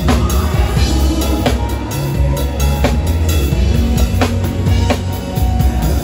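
Drum kit played live with a gospel band, heard close up: snare and cymbal strokes over heavy bass, with strong accented hits about every second and a half.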